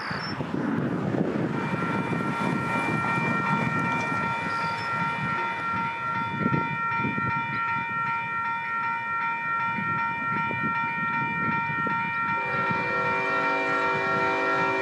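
A railroad crossing warning bell starts ringing about a second and a half in, a steady run of repeated high dings, over a low, uneven rumble. About twelve seconds in, the horn of the approaching Union Pacific locomotive starts sounding a long blast in the distance under the bell.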